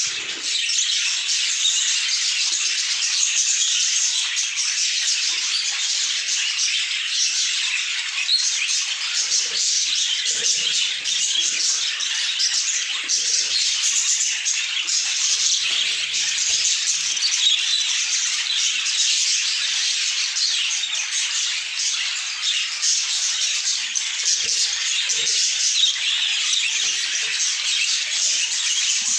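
A flock of budgerigars chattering and warbling, many birds calling over one another at once in a steady, high-pitched chorus.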